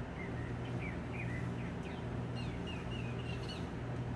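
Engine oil pouring from the open drain plug hole of the truck's oil pan into a drain pan, a steady splashing hiss. Small birds chirp over it again and again, and a low hum runs under it.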